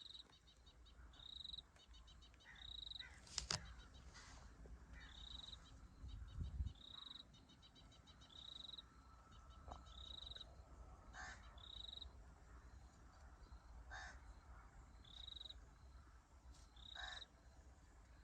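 Faint birdsong in the open: a short high whistled note repeats every second or two among rapid trilling, with a harsher call three times in the second half. A sharp click comes a few seconds in, and a low rumble of wind comes just after that.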